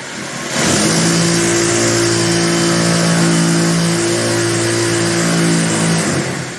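A handheld electric power tool running at a steady full speed for about five and a half seconds, with a loud motor whine, then stopping.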